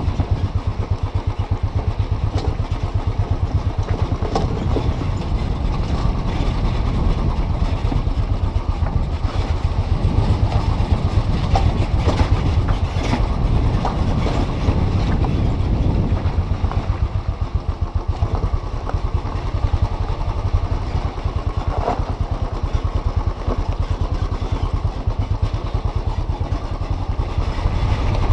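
Royal Enfield single-cylinder motorcycle engine running steadily with an even, rapid thump as the bike rides a rough gravel track. A few sharp knocks and rattles come through from the bike on the stones.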